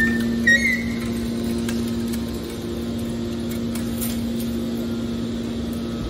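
Hydraulic scrap metal baler's power unit running with a steady, even hum, with a brief high squeak in the first second.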